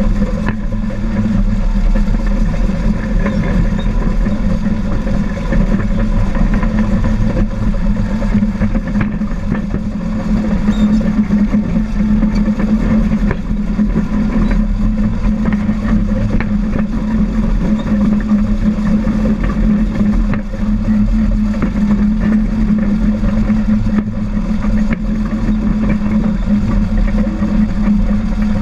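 Caterpillar D4 7U crawler dozer's four-cylinder diesel engine running steadily under load while the dozer pushes dirt, heard up close beside the engine compartment.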